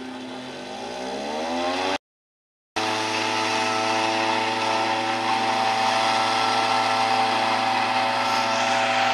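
Two-person motorized tea harvester's small engine revving up over the first two seconds, then running steadily at high speed as it shears the tea bushes. The audio drops out completely for under a second about two seconds in.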